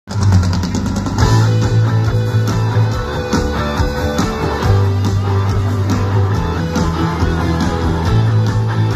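A rock band playing live through a PA: electric guitars strumming over drums, with the bass holding long low notes in three stretches of about two seconds each. The music starts suddenly right at the beginning.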